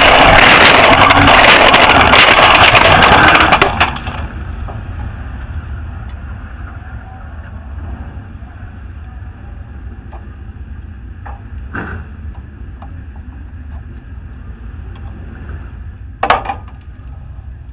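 Dirt-track race car's engine running loud and harsh, then cutting off abruptly a little under four seconds in as the car lies overturned. After that a low rumble remains, with a few sharp clicks and knocks from the car, the loudest near the end.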